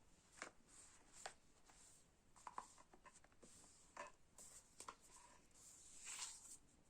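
Near silence in a small room, broken by faint scattered clicks and light rustles, with a brief rustle about six seconds in.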